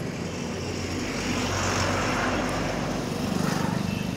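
Street traffic: a motor vehicle passes close by, its engine and tyre noise swelling and then fading, over a steady low engine hum. Near the end another engine pulses close by.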